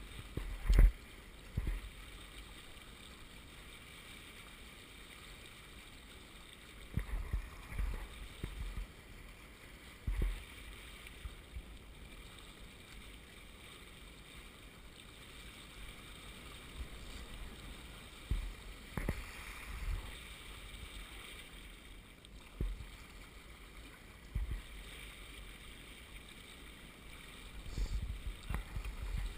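Water rushing and gurgling along the hulls of a small sailing catamaran under way, with a handful of short low thumps scattered through it.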